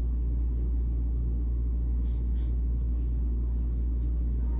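A steady low hum, even in level throughout, with a couple of faint soft rustles a little after two seconds in.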